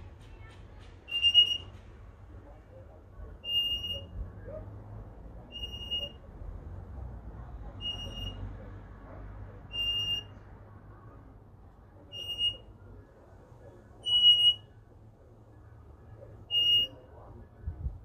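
African grey parrot mimicking an electronic beep: a short, high, steady beep repeated eight times, about one every two seconds, each a little different in length and loudness.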